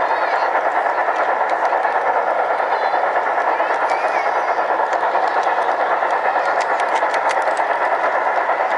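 LGB large-scale model train's motor and wheels running along brass track, heard from a camera riding on the train: a loud, steady whirring with a fast, even flutter. A run of sharp clicks comes about seven seconds in.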